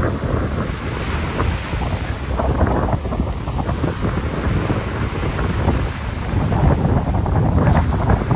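Strong gusty wind buffeting the microphone, an uneven rumble that swells and dips, over the wash of wind-driven choppy water.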